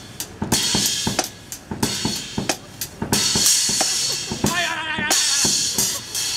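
Drum-kit music with a steady beat: bass drum, snare and cymbals, with a wavering pitched tone briefly over it about two-thirds of the way through.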